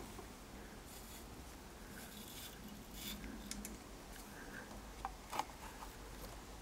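Phosphor-bronze wire brush scrubbing soot from the fire tubes of a coal-fired model steam locomotive's boiler: faint scratchy strokes, with a few small sharp clicks about five seconds in.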